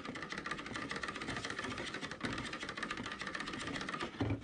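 Stick blender running steadily in a bucket of melted soap oils and butters with a whole raw egg, blending the egg into the oils.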